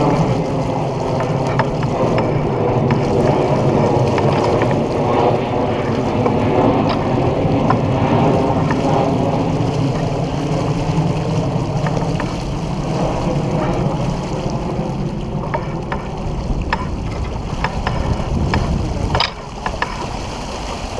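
Wind buffeting the microphone and water rushing along the hull of a sailboat under way, a steady loud rush, with scattered clicks and one sharp knock near the end.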